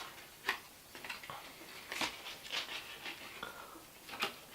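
Handling noise of small parts and new starter cord being picked up: a few light clicks and taps, about three, with faint rustling between them.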